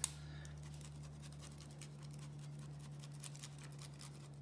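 Faint, irregular rasping scrapes of a block of Parmigiano Reggiano being grated by hand on a rasp grater over a bowl, with a sharp click at the very start. A steady low hum runs underneath.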